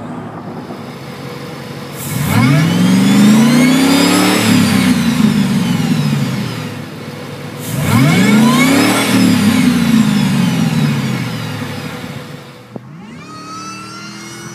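Supercharged 5.4-litre V8 of a 2004 Ford F-150 SVT Lightning revving up twice, each time climbing in pitch with a rising supercharger whine and then falling back. Near the end a third, quieter run begins.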